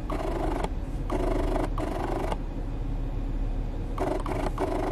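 Steady low rumble inside a car's cabin, with short stretches of muffled pitched sound coming and going over it.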